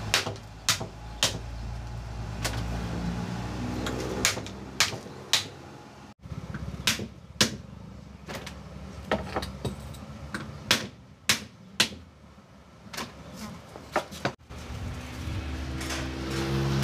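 Sharp, irregular knocks of a blade chopping at roasted bamboo tubes, shaving off the charred outer layer. An engine hums in the background twice.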